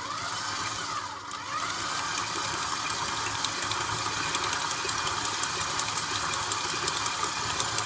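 KitchenAid stand mixer running, its beater mixing flour into cake batter in a steel bowl. The motor pitch wavers for about the first second and a half, then runs steady.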